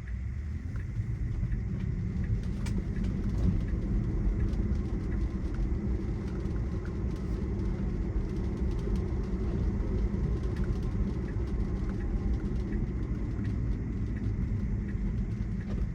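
Steady low road and tyre rumble of an electric Tesla, heard inside the cabin while driving on a wet road, with faint scattered ticks over it.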